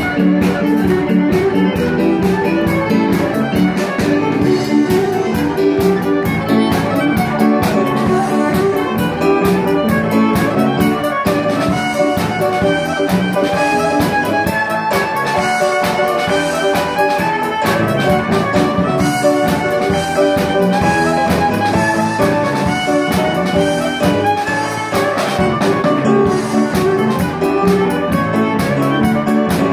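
Live ceilidh band playing a dance tune on fiddle, piano and drum kit, with a steady, even beat.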